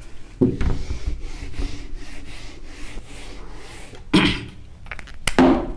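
A felt whiteboard duster is rubbed back and forth in quick repeated strokes, wiping the board clean. Two short voice sounds come near the end.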